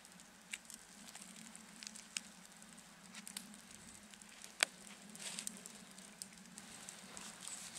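Campfire crackling, with scattered sharp pops and snaps, the loudest a little past halfway, over a faint steady low hum.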